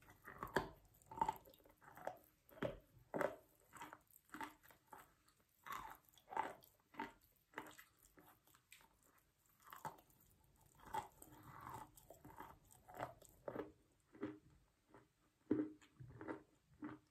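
Wet chalk being bitten and chewed: a steady run of crisp crunches, about one and a half a second.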